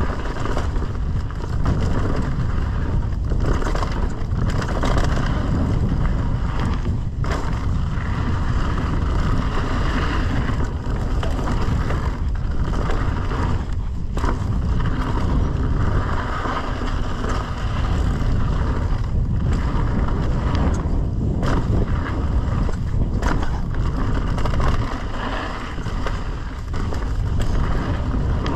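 Mountain bike descending a dirt trail: a steady rush of wind on the microphone mixed with tyre and rattle noise on loose dirt, broken by a few brief dips.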